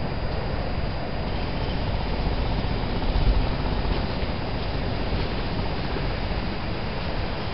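Steady outdoor background rumble and hiss, heaviest in the low end, with no distinct sounds standing out and a slight swell about three seconds in.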